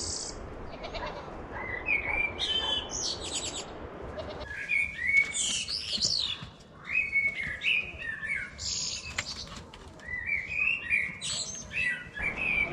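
Several birds chirping and singing in quick, overlapping calls over a steady background hiss.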